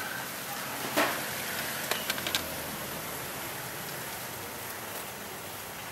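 A steady hiss with a sharp knock about a second in, then a quick run of clicks around two seconds in, as a chocolate-spread jar, its lid and a knife are handled on a stainless-steel counter.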